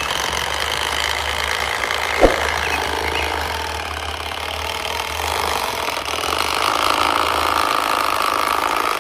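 Radio-controlled model construction machines running: a steady mechanical whir and hum of small motors and gears. A single sharp click comes about two seconds in, and a higher whine rises in from about two-thirds of the way through.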